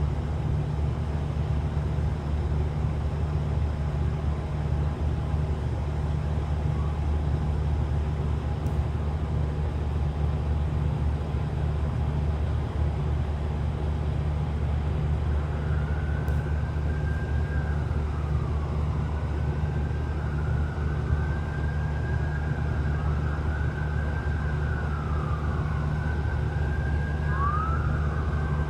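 Rooftop HVAC unit running with a steady low hum. From about halfway through, a siren wails in the distance, rising and falling over and over.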